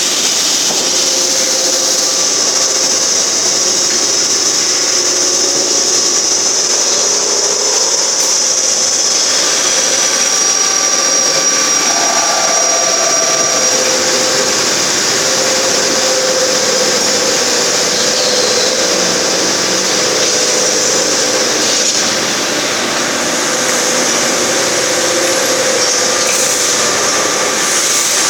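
CNC machine tools running in a machine shop: a steady mechanical hiss with a few held whining tones that shift over time.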